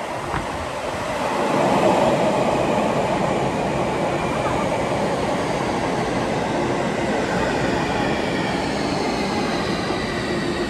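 Sotetsu 20000 series electric train bursting out of a tunnel into the station with a blast of air, its noise swelling to a peak about two seconds in, then running in along the platform. From about the middle on, the Hitachi hybrid SiC VVVF inverter gives a whine that falls in pitch as the train slows.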